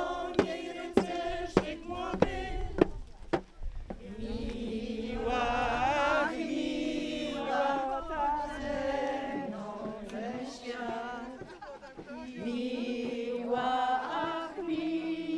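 A group of mostly women's voices singing a Polish folk song together while walking in procession. A small drum beats steadily, about one stroke every 0.6 s, for the first three seconds or so. After that the singing goes on without the drum.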